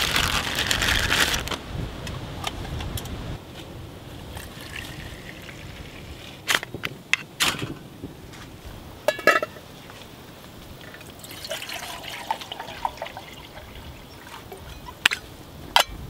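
A plastic bag rustles in the first second or so. Then a ferrocerium rod is scraped with a striker twice, sharp and short, to light tinder in a folding steel Firebox stove, followed by a metallic clink. Near the end there are two sharp metal clicks as a lidded pot is set on the stove.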